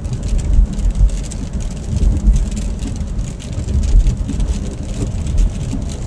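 A car driving, heard from inside the cabin: a steady low rumble of engine and road noise, with light raindrops tapping on the car.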